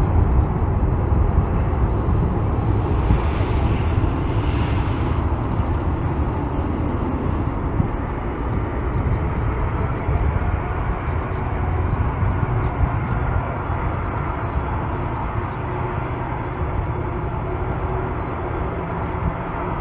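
Boeing 747-400 freighter's four turbofan engines running at low power as it taxis and lines up on the runway: a steady deep rumble with a brief rise in hiss about three to five seconds in.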